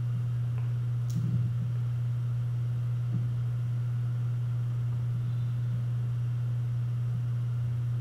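A steady low hum that does not change, with a few faint ticks over it.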